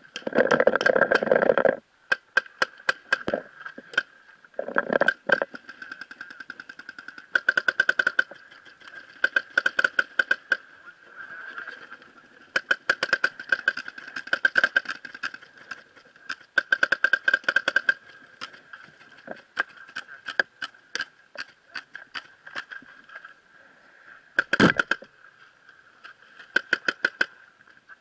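Paintball markers firing in rapid strings of sharp pops, several shots a second, starting and stopping again and again. A steady high tone runs underneath, and one heavier thud comes near the end.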